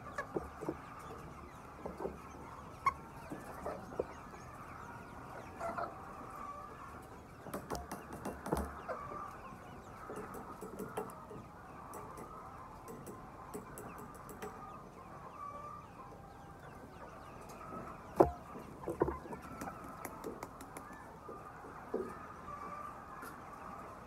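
A large flock of white chickens clucking together in a steady, dense chatter, broken by scattered sharp taps and knocks. The loudest knock comes about three-quarters of the way through.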